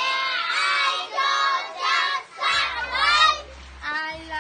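Children singing together, their voices overlapping in chorus.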